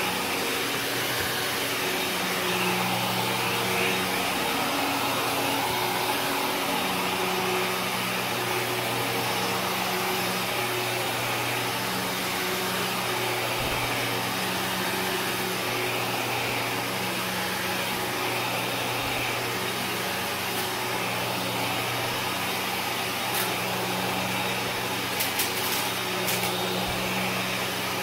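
Kenmore upright vacuum cleaner running steadily while pushed back and forth over carpet, its motor tone shifting with each stroke. A few sharp crackles near the end are debris being sucked up in a real-dirt vacuuming.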